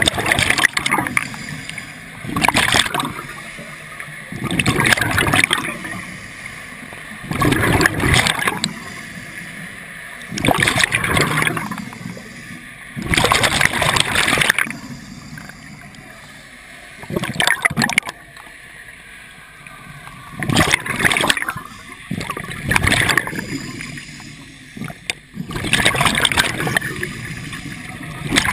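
Scuba regulator exhaust bubbles heard underwater: a rushing, bubbling burst every two to three seconds, one for each exhaled breath, about ten in all.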